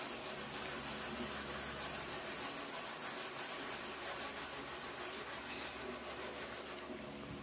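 Steady hiss of hot oil and popcorn kernels sizzling in a covered aluminium pot being shaken on a gas burner, before any kernel has popped.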